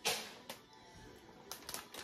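Kitchen handling sounds from hands working shredded cheese in an aluminium foil pan and picking up a plastic bag: a sharp rustling click at the start, another about half a second in, then a quick cluster of crackles near the end. Faint background music runs underneath.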